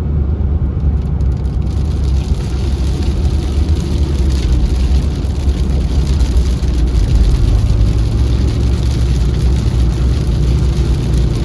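Heavy rain suddenly pelting the car as it drives into a downpour, heard from inside the cabin over the steady low drone of engine and road noise. The rain noise comes in about a second and a half in and stays heavy.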